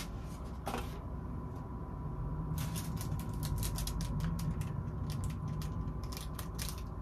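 Small clear plastic bag crinkling and crackling as it is handled between the fingers, a quick run of crackles starting about two and a half seconds in, over a low steady hum.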